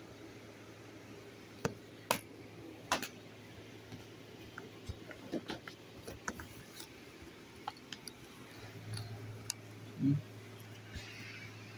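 Handling noise: irregular small clicks and taps, with a few sharper knocks about two to three seconds in and a short low thump near the end, over a faint steady low hum.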